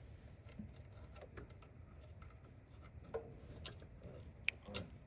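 Scattered faint clicks and ticks of small parts being handled and fitted by hand, with a few sharper clicks in the second half.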